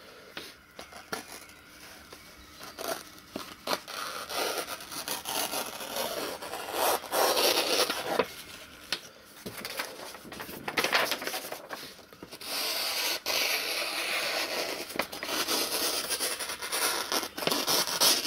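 Sakai Takayuki laminated VG10 santoku blade slicing a curved cut through a hand-held sheet of printer paper: a dry hiss in several stretches of cutting, the longest in the second half, with paper rustling and small clicks between. The edge cuts cleanly around the turn without catching, the sound of a very sharp knife.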